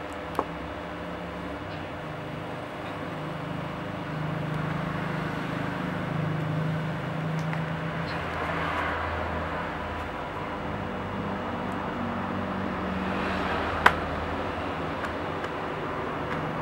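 Steady low background rumble with a faint hum, broken by two sharp clicks: a small one just after the start and a louder one near the end.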